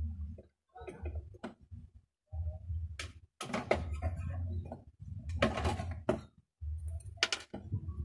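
Clicks, scraping and rattling of wires and metal parts being handled inside an opened microwave oven as a component is worked loose, with the loudest bursts of noise a little before and after the middle. A low hum runs underneath and cuts out several times.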